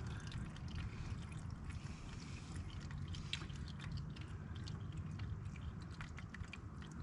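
Old engine oil draining from a riding mower into a drain pan: faint irregular trickling and dripping over a steady low background rumble.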